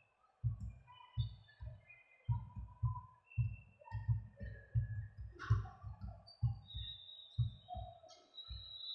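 Short, deep thumps repeating irregularly about twice a second, with faint bird chirps above them.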